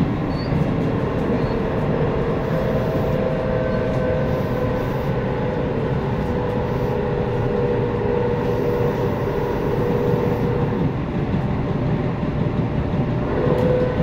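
Tobu 9000-series electric train with GTO-VVVF inverter control running, heard from inside the car: steady rail and running noise with a whine that drifts slightly lower and then rises near the end.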